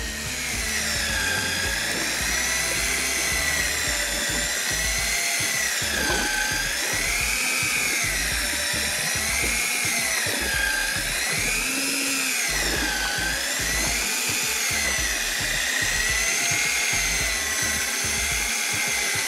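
Electric fishing reel motor winding in line under the heavy load of a large squid on a deep drop. It makes a steady whine whose pitch rises and falls smoothly every two to three seconds as the load on the line changes.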